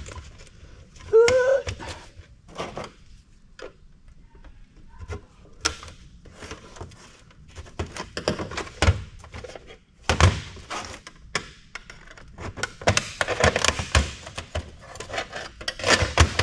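Steel and plastic parts of an old desktop computer knocking and clattering as it is taken apart by hand. Irregular thunks and rattles come from the chassis and loose pieces, thickest near the end.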